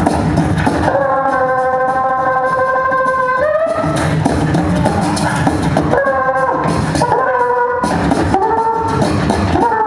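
Five beatboxers performing together: vocal percussion under sustained pitched vocal tones that step to new pitches every second or two.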